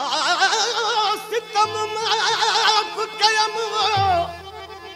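Live Sindhi Sufi folk music: a lead melody with fast wavering ornaments over steady harmonium drone notes, with low notes coming in twice. The melody fades out shortly before the end.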